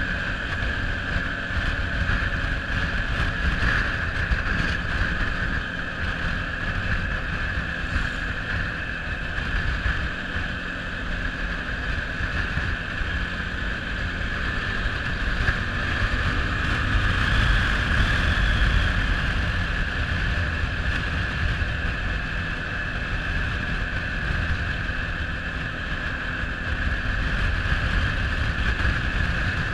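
Quad bike's engine running steadily while riding, with wind buffeting the microphone; a little louder a bit past halfway through.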